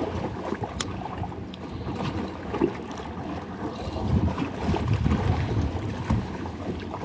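Strong wind buffeting the microphone in uneven gusts, with a sharp click about a second in.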